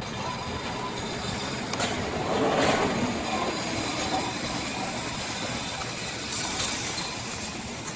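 Steady outdoor street traffic noise, swelling briefly a little over two seconds in.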